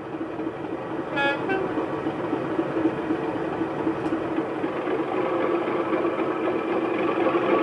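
Sound-fitted OO gauge model Class 37 playing the standard Bachmann Class 37 diesel sound file through an EM2 speaker: a steady diesel engine drone that slowly grows louder, with a short two-note horn about a second in.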